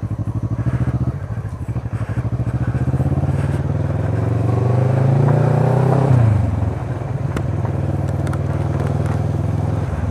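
Motorcycle engine running on the road, its pitch climbing for a few seconds as it accelerates, then dropping sharply at a gear change about six seconds in and settling to a steady cruise.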